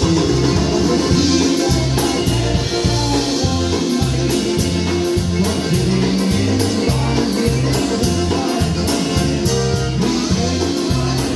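Live polka band playing: Chemnitzer concertina and accordion over a two-beat oom-pah line on electric bass, with drums keeping a steady beat on the cymbals.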